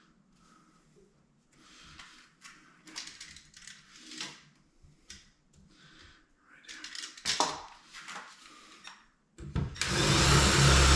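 Light taps, clicks and rubbing of hand work at the cabinet door, then, about nine seconds in, a power drill starts and runs steadily and loudly, drilling the knob hole through the vanity door.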